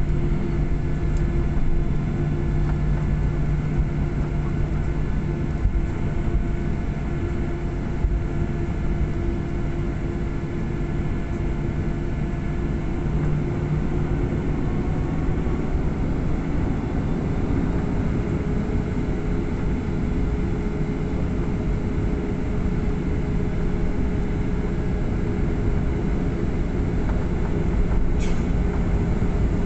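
Cabin noise of a Boeing 737-800 taxiing: the steady rumble and low hum of its CFM56-7B engines at low thrust, the engine tone rising slightly about halfway through.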